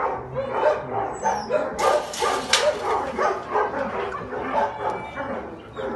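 A dog yipping and barking in short calls in quick succession, with a brief rustling noise about two seconds in.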